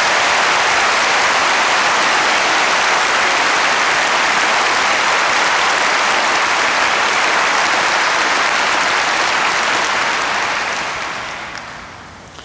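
Large audience applauding steadily, then dying away over the last two seconds or so.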